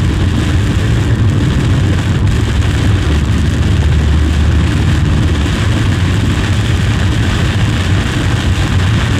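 Steady driving noise heard from inside a moving vehicle: a low engine and road rumble under an even hiss of tyres and air.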